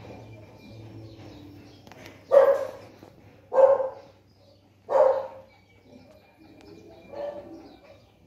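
Small dog barking three times, about a second and a quarter apart, then once more, softer, near the end.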